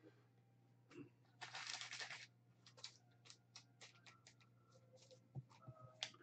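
Baseball cards and a clear plastic card sleeve being handled: a brief rustle about a second and a half in, then soft clicks and flicks of card stock.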